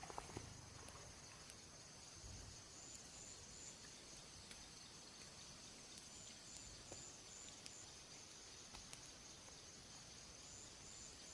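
Faint insects chirping in the dark: a steady high hum with a few short runs of pulsed chirps, plus scattered faint clicks.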